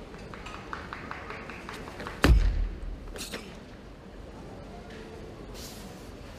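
Karate kata being performed in a large hall: light snaps and footfalls, then one heavy thud about two seconds in, with a sharper, fainter impact a second later.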